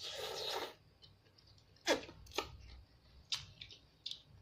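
Child eating soupy instant ramen noodles with chopsticks: a short noisy slurp at the start, then a few sharp clicks and mouth smacks spaced out over the next few seconds.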